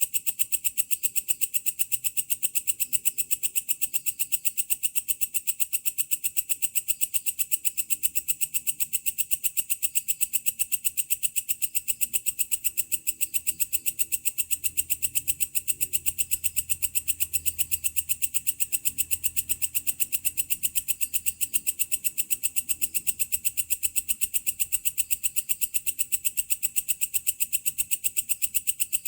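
A belalang kecek (walang kerik) katydid calling at night: a steady, rapid, evenly pulsed shrill chirring of about five or six pulses a second, unbroken throughout, with a faint low rumble beneath.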